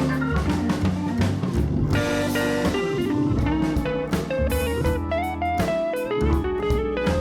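Background music: a plucked electric guitar melody over bass and a drum beat.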